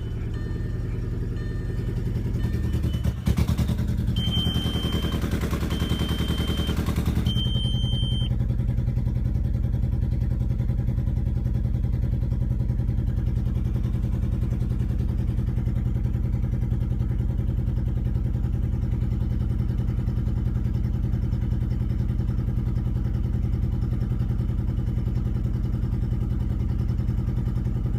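Volkswagen Passat engine running steadily after starting with its sensor plugged in upside down. There is a knock about three seconds in, then a few seconds of hiss with repeated short beeps.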